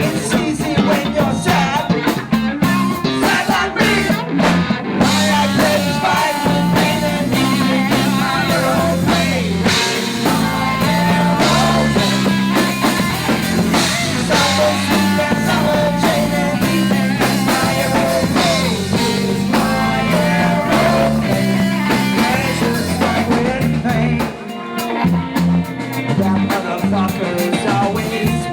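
Rock band music with electric guitar and a drum kit. The band drops back briefly near the end, then the drums come back in.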